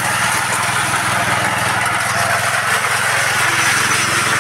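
Power trowel's small petrol engine running steadily at an even speed.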